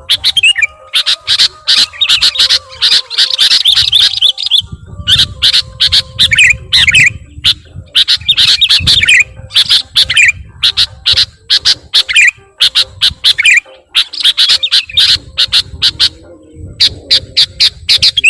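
Sooty-headed bulbul (kutilang) calling loudly: rapid harsh chirps and chattering note runs, repeated again and again as a bird lure call. A low rumble comes and goes underneath.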